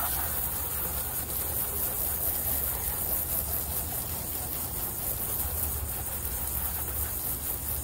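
Garden hose spray nozzle spraying a steady hiss of water onto a wooden fence: a low-pressure soft rinse, not a pressure washer.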